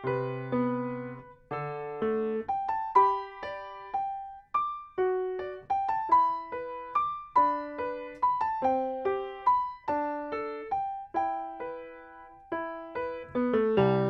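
Solo grand piano playing a slow melody of single notes and light chords, each note struck and left to fade; fuller, lower chords come in near the end.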